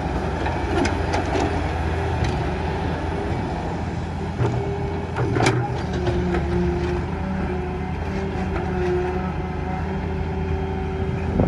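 Solar 130 excavator's diesel engine running steadily under load, with a whine that shifts in pitch and a few sharp clanks, the loudest about five seconds in.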